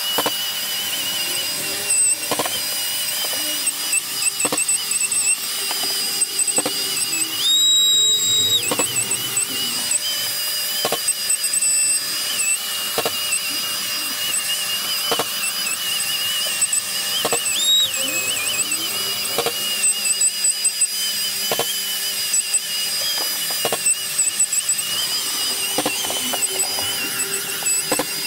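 Long-reach drywall sander with dust-extraction hose sanding joint compound on a ceiling and wall: a steady high-pitched whine that wavers slightly, jumping up in pitch about eight seconds in and again briefly near eighteen seconds. Short knocks and scuffs of the sanding head on the surface come at intervals.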